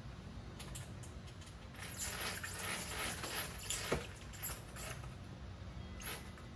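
Roller blind being lowered by its bead chain: rapid clicking of the chain running through the roller mechanism in spells, starting about two seconds in and strongest around four seconds.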